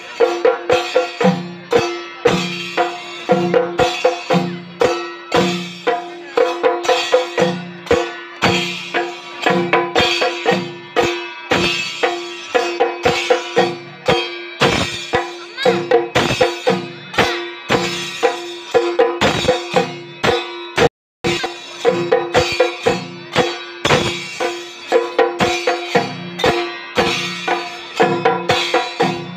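A chenda drum ensemble played with sticks in a fast, driving rhythm, with a steady held tone sounding underneath. The sound drops out for a moment about two-thirds of the way through.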